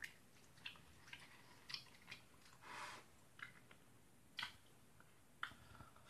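Faint mouth sounds of someone chewing food, with scattered short wet clicks and a brief soft hiss about three seconds in.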